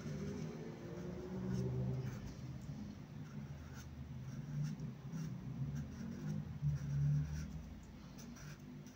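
Felt-tip marker pen with its tip slit into two parallel points, scratching across paper in a series of short strokes as letters are written.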